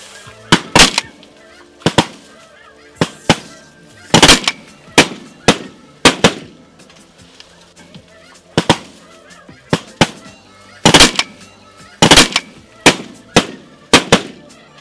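Snow geese calling: an irregular run of short, loud honks, some doubled, about twenty in all.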